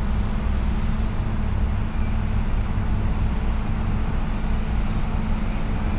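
Steady traffic noise from a busy freeway, an even rush of cars and trucks with a low, constant hum underneath.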